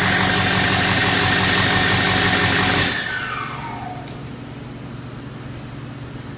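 2007 International VT365 6.0-litre V8 turbo-diesel running hard on a test stand, then dropping off sharply about three seconds in, its turbocharger whine falling in pitch as it spools down, leaving a quieter steady run.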